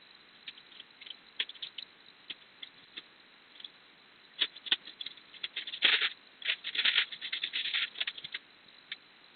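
A cat scratching and rattling at something in short irregular bursts, sparse at first and busiest from about six to eight seconds in.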